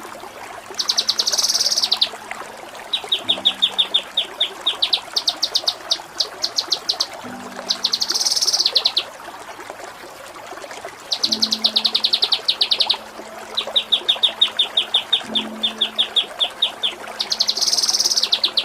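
A kinoi songbird singing in repeated bursts of rapid high trills, roughly a dozen notes a second, with short pauses between phrases. The song carries kapas tembak and cililin-style 'shooting' phrases, the kind used as a masteran tutor recording for competition birds.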